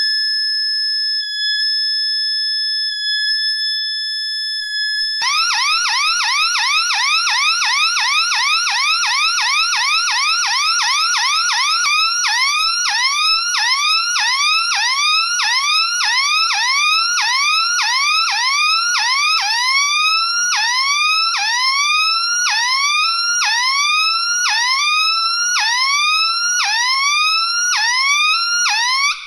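Triple-tone industrial hooter (electronic alarm sounder) running through its tones. It starts with a steady high tone for about five seconds. It then switches to rising sweeps at about three a second, slowing to about two a second and then to a little over one a second near the end, where it cuts off.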